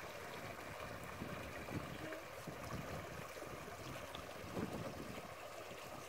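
Steady rush of running water from a stream, with a few faint distant voices.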